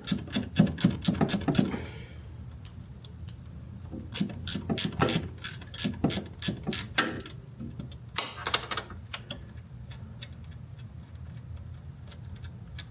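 Hand ratchet clicking in quick runs of about five clicks a second, stopping and starting three times, as a nut is backed off with a 1/2 inch socket.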